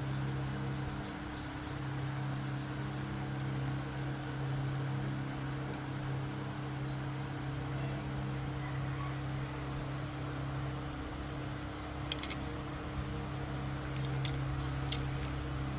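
A machine hums steadily in a low tone. A few sharp clicks come near the end, one of them loud.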